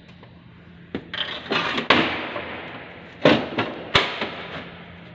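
A run of sharp clicks, clanks and scraping rattles of hard parts being handled in a truck's engine bay, over a low steady hum. The loudest knocks come about two seconds in and again about three to four seconds in.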